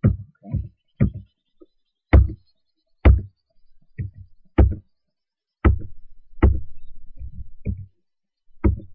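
Computer keyboard keys being pressed: about a dozen dull thumps at uneven intervals, some close together and some a second apart.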